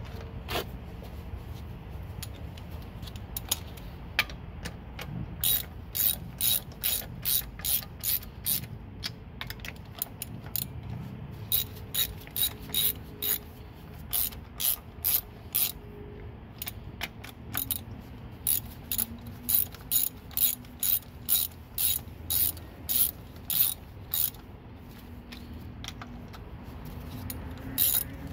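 Hand socket ratchet clicking in fast, regular runs of about three clicks a second as the wheel's lug nuts are run down. It starts with a few scattered clicks, and the clicking pauses shortly before the end.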